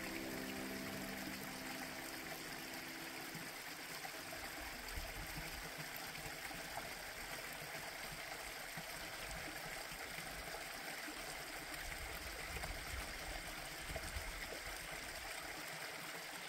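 Faint, steady sound of a small creek's water trickling and flowing. The last held notes of background music fade out in the first few seconds.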